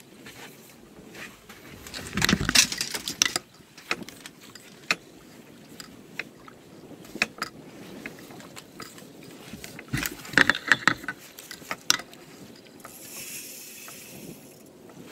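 Irregular clicks and knocks of fishing tackle being handled aboard a small boat, loudest about two seconds in and again around ten seconds in, with a brief hiss near the end.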